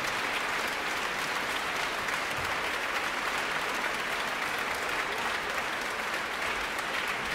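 Audience applauding steadily in a large concert hall.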